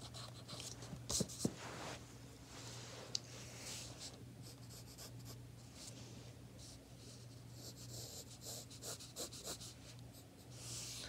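Pencil sketching on sketchbook paper: faint, irregular scratchy strokes, with a few light ticks in the first few seconds, over a faint steady hum.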